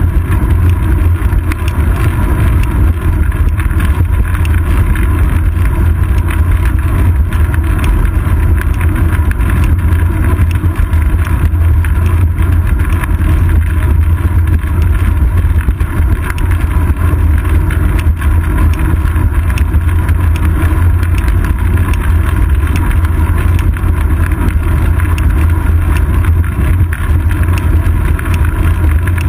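Wind rushing over the microphone of a seat-post-mounted GoPro on a moving bicycle, mixed with tyre and road noise: a loud, steady low rumble.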